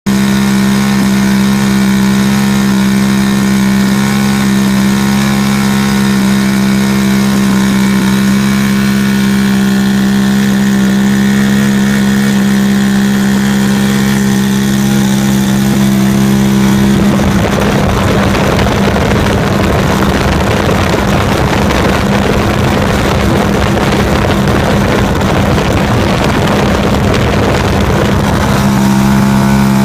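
Engine of a newly built Pitts Beast running at steady speed during break-in. About 17 seconds in, the even note turns rough and noisy for roughly eleven seconds, and the steady note returns near the end.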